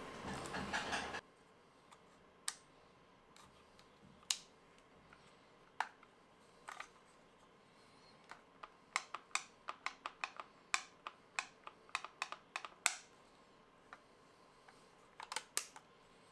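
Sharp clicks and snaps of the small plastic and metal parts of an ARP9 gel ball blaster being worked by hand: a few scattered clicks, then a quick run of them through the middle and a short cluster near the end. A rushing noise cuts off about a second in.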